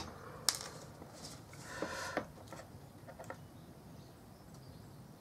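Small plastic model-kit parts handled and pressed together between the fingers: a sharp click about half a second in, a short rustle near two seconds, then a few faint ticks.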